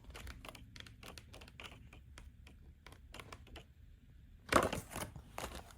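Paper and plastic packaging being handled: a run of faint light clicks and ticks, then a louder rustle about four and a half seconds in.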